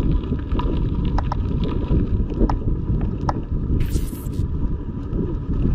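Wind buffeting the microphone of a handlebar-mounted camera on a moving mountain bike, with riding noise from the bike and a few small rattling clicks. A short hiss comes about four seconds in.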